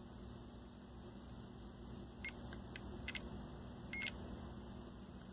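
Short high-pitched electronic beeps, about four between two and four seconds in, from a Capacitor Wizard ESR meter as its probes are held to a small electrolytic capacitor's leads, over a low steady hum.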